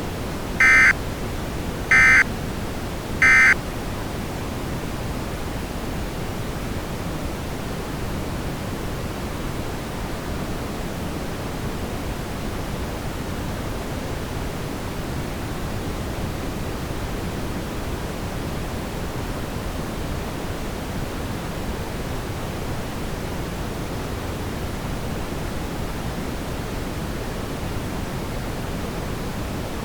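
Emergency Alert System end-of-message signal: three short bursts of warbling digital data tone about a second apart, marking the close of the alert. A steady hiss of static follows.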